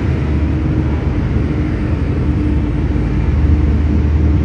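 UD Trucks Quester CKE 250 diesel engine pulling the truck along slowly in first gear, heard inside the cab: a steady low rumble with a constant hum over it.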